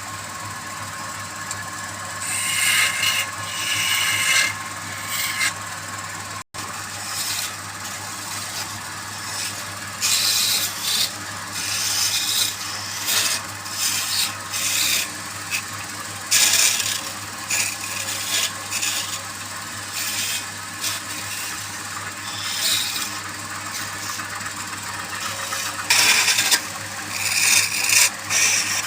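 Woodturning lathe running with a steady low hum while the spinning wood is worked, giving irregular rasping scrapes that come and go in surges. The sound cuts out for an instant about six and a half seconds in.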